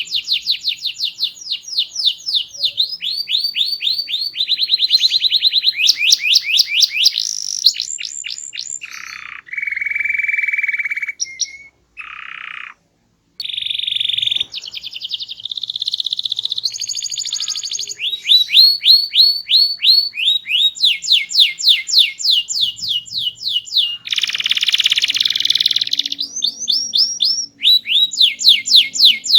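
Domestic canary in full song: a long, loud, varied song of rapid trills and fast runs of repeated sweeping notes, changing phrase every second or two. It breaks off briefly about twelve seconds in.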